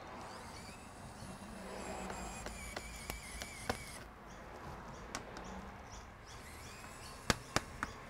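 Tools and gloved hands handling a laptop's metal bottom cover as it is opened, giving faint handling noise and a few sharp clicks, three of them close together near the end.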